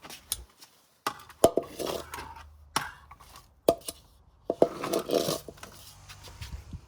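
Things being handled: several sharp knocks and clacks with rustling in between, over a low steady hum that starts about a second in.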